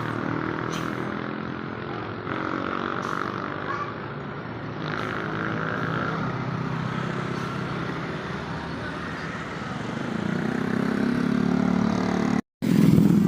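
Bus engine running steadily, growing louder from about ten seconds in, with a brief drop-out of all sound near the end.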